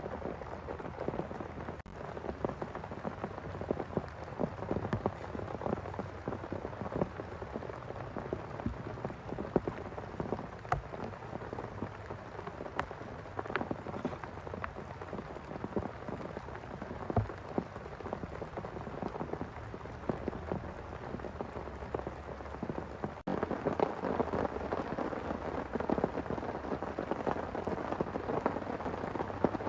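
Heavy rain falling: a dense, continuous patter of drops with scattered louder single drips. There is a brief break about two-thirds of the way through, after which the rain is a little louder.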